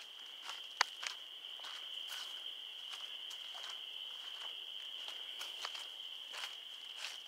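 Chorus of insects making a steady, continuous high-pitched trill, with occasional short clicks and soft steps over it, the sharpest click about a second in.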